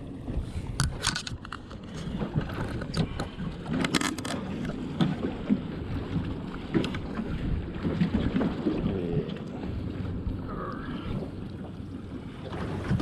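Wind buffeting the microphone on a small fishing boat at sea, over a low steady rumble, with a few sharp knocks about one and four seconds in.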